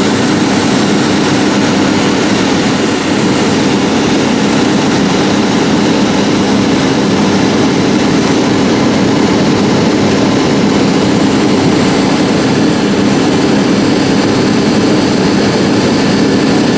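New Holland CR8090 combine running steadily while unloading grain: an even, loud engine-and-machinery drone with a strong low hum that does not change.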